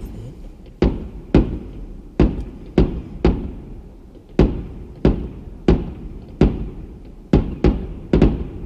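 Fireworks going off in quick succession: a string of sharp bangs, roughly one or two a second and unevenly spaced, each trailing a short echo.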